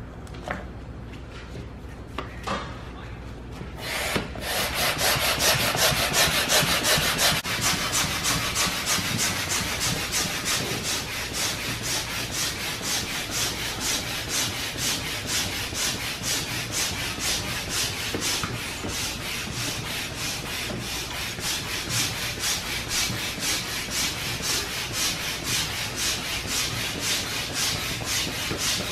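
Hand air pump inflating an inflatable kayak through a hose: a rhythmic rush of air, about two strokes a second, starting about four seconds in after a few small clicks.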